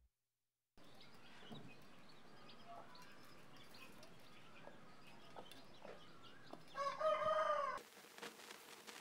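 Faint, scattered peeping of young chicks and a hen, then a rooster crows once, a single call of about a second, which is the loudest sound here.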